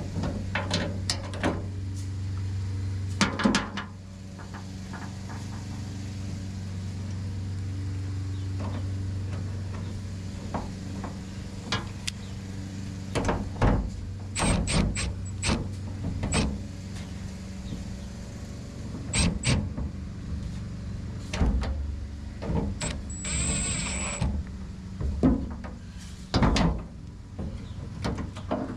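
Scattered metallic clicks and knocks as nuts are started by hand on the studs of a replacement tailgate handle, over a steady low hum. A brief high whir comes about 23 seconds in.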